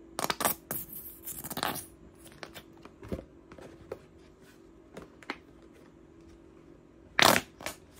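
Plastic hair-product bottles being handled while the products are squeezed out and mixed: scattered clicks, knocks and short scraping or squelching noises, busiest in the first couple of seconds, with the loudest a sharp pair of knocks about seven seconds in.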